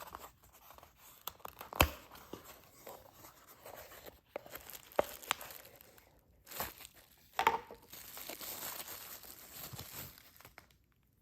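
Small product box and packaging being opened by hand: scattered clicks and rustles of handling, with tearing and crinkling of packaging. Near the end comes a longer stretch of steady rustling that stops suddenly.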